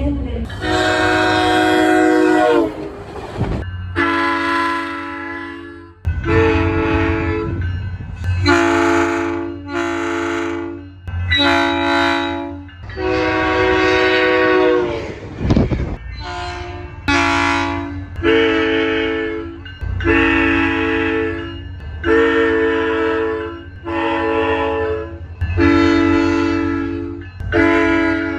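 SunRail train horns sounding a run of about fifteen long and short blasts, each a chord of several steady notes, one after another, over a steady low rumble from the train.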